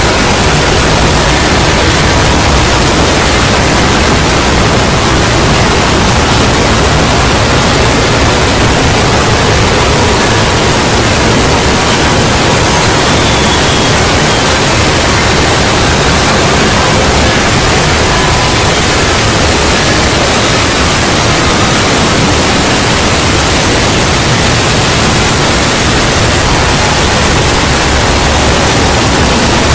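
Loud, steady static-like noise filling the whole range evenly, with faint thin tones buried in it: a harsh, distorted made-up 'punishment' sound effect.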